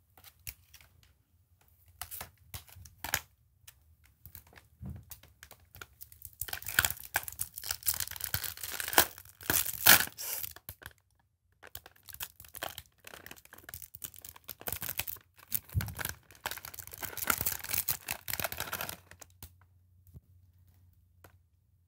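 A small foil bag of Doritos being torn open and handled, the plastic film crinkling and crackling. It starts with scattered crackles, builds to two long stretches of dense crinkling with a short pause between them, then dies down near the end.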